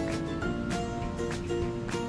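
Background music: a tune of held notes over a regular beat.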